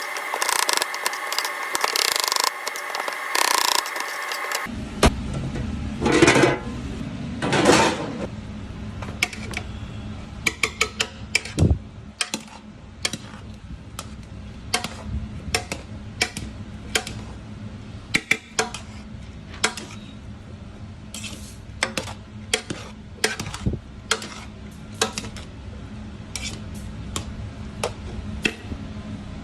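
Kitchen clatter: scattered clinks and knocks of utensils and dishes over a steady low hum. About five seconds in, a louder, denser sound with steady high tones cuts off abruptly before the clatter begins.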